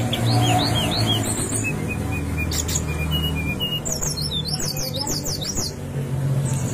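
Brown-chested jungle flycatcher singing: a string of short downward-slurred whistles, lower steady notes in the middle and a quick run of descending high notes near the end.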